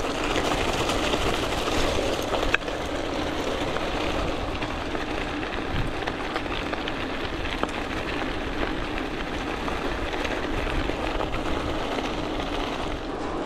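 Gravel bike tyres rolling fast over a loose gravel track: a steady rumbling rolling noise from the bike, with a single sharp click about two and a half seconds in.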